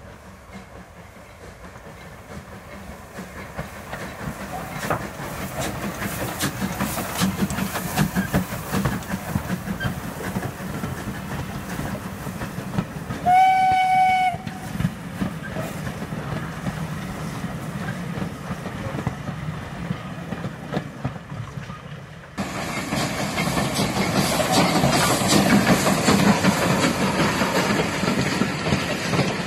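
Steam locomotive hauling a train of coaches past at low speed, the running and rail noise growing louder as it approaches. It gives a single steam whistle blast about a second long around the middle. Louder and closer passing-train noise from about two-thirds of the way through.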